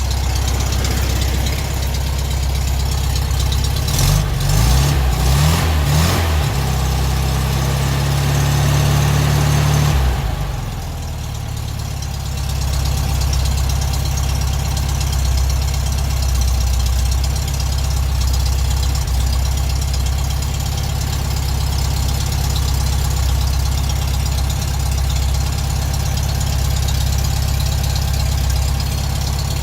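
A 1967 VW Beetle's air-cooled 1200 flat-four engine running on its cold-start choke fast idle just after starting. Between about 4 and 10 seconds in, the engine note changes and rises; it then drops about 10 seconds in and settles into a steady idle.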